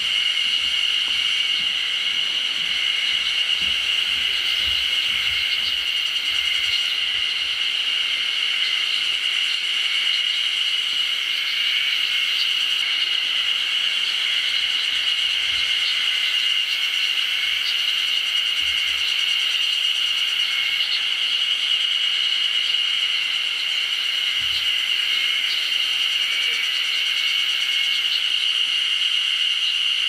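A steady high-pitched insect chorus that drones on without a break.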